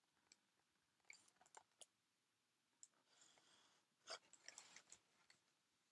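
Near silence, broken by a few faint clicks and soft rustles.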